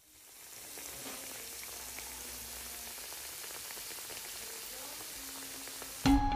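Hot oil sizzling steadily around a breadcrumb-coated roll deep-frying in a pan, fading in at the start. Music starts abruptly near the end.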